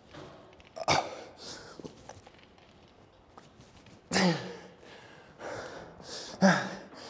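A man's forceful exhales of effort while lifting a heavy weight. Three loud ones with a voiced groan dropping in pitch come about one, four and six and a half seconds in, with shorter breaths between.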